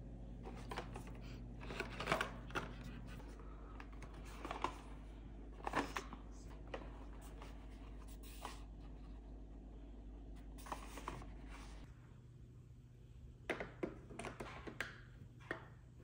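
Cardboard Nespresso capsule sleeves and a coffee pod being handled and set down on a table, giving scattered light taps, clicks and rustles over a steady low hum. The hum drops away about twelve seconds in, and a quick cluster of clicks follows.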